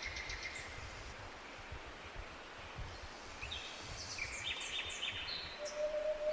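Tropical forest birds calling in rapid, trilled chirps over the steady rush of a jungle waterfall. One call fades out under a second in, another burst of chirps comes in the second half, and a steady low whistle begins near the end.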